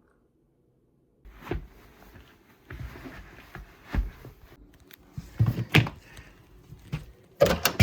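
After a second of silence, a series of irregular thumps and rustles, the loudest cluster near the end.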